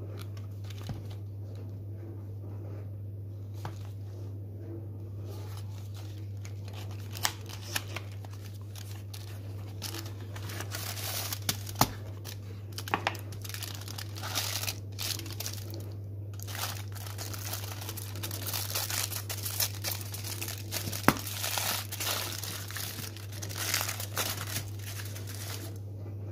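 A chocolate bar's cardboard box being handled and opened, then its aluminium foil wrapper crinkled and torn open by hand, with sharp clicks now and then. The crinkling thickens from about ten seconds in and goes on until near the end.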